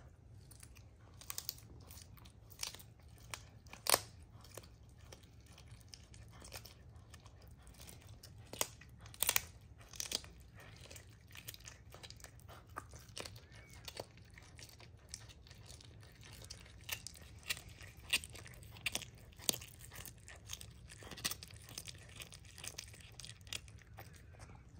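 Serval chewing and crunching a raw chicken wing: a run of irregular, sharp crunches of bone and gristle, with the loudest bites about four seconds in and again around nine to ten seconds.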